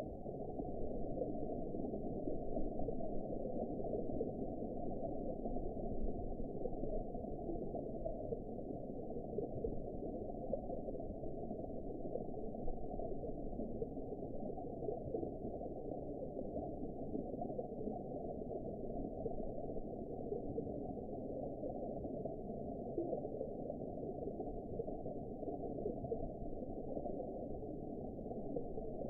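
Underwater ambience: a steady, muffled wash of water noise, all of it low and dull with nothing in the high range.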